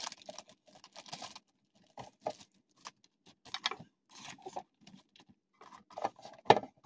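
Handling noise from a clear plastic sleeve and a clear plastic storage case: a short rustle of plastic, then scattered light taps and clicks as items are moved. A sharper knock comes near the end.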